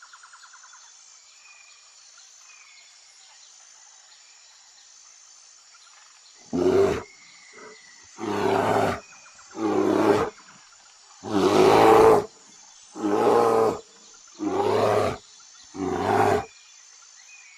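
A large animal roaring: seven deep roars in a row, each under a second long and about a second and a half apart, the middle one the longest and loudest. They start about six seconds in, over a faint chirring of insects and birds.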